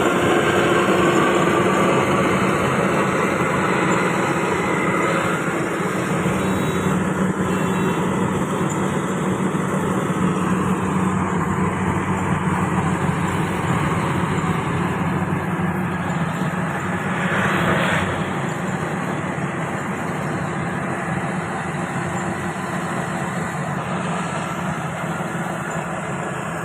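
Rice combine harvester at work, its engine running steadily with a broad mechanical rush, and a brief louder swell about seventeen seconds in.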